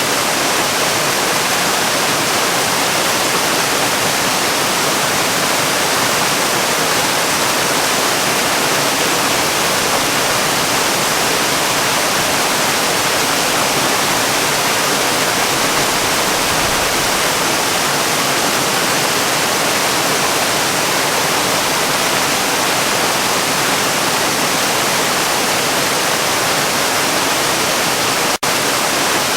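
Rushing water: a steady, even roar like a waterfall or fast river, starting abruptly, with a brief drop near the end.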